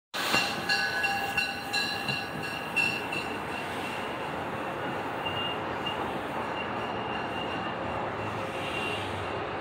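MARC commuter train running at the station. Several high, steady squealing tones and a few sharp clanks come in the first three seconds or so, then a steady rumble.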